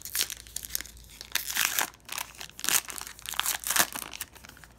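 Foil wrapper of a Panini Prizm football card pack being torn open and crinkled in the hands, in several loud spells of rustling and tearing.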